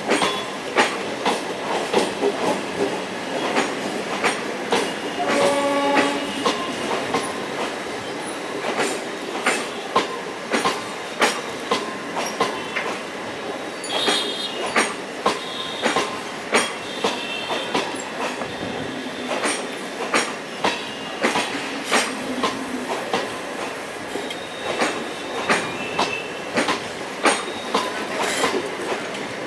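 MEMU electric local train running past close by, its wheels clicking over the rail joints in an uneven rhythm. A short horn note sounds about six seconds in, and high wheel squeals come and go around the middle.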